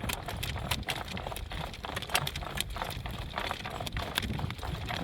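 Horse's hooves clip-clopping as it moves out in harness pulling a cart, a quick irregular run of sharp hoofbeats over a steady low rumble.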